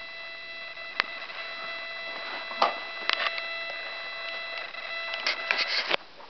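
Scattered clicks and knocks of a baby's hands tapping the plastic buttons and top of a toy activity table, a few single taps and then a quick cluster near the end. Under them a steady high whine, which stops just before the end.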